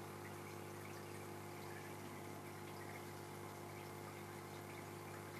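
Aquarium pump running steadily with a low hum, and faint water trickling and bubbling in the tank.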